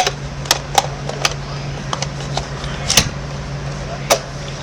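Small plastic clicks and taps from handling a miniature toy vending machine and its tiny items, a handful of separate sharp clicks, over a steady low hum.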